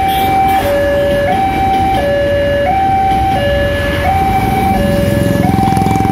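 Railway level-crossing warning alarm: an electronic two-tone signal switching between a high and a low tone about every 0.7 seconds. Beneath it is the rumble of an electric commuter train passing over the crossing, which grows fuller near the end.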